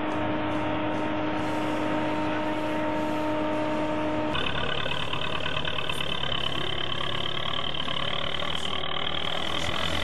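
Farm machinery running steadily: the corn harvester with a steady whine. About four seconds in, an abrupt cut to a tractor's diesel engine running.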